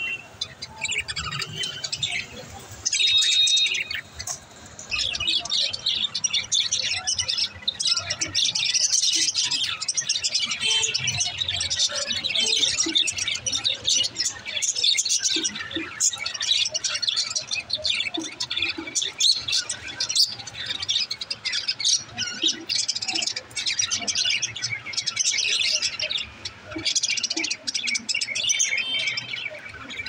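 Several budgerigars chattering and warbling without pause, many short high chirps overlapping.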